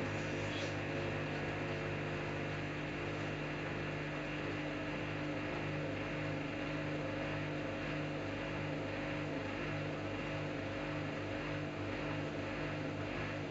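Samsung Eco Bubble washing machine running a cotton wash cycle: a steady mechanical hum with several held tones.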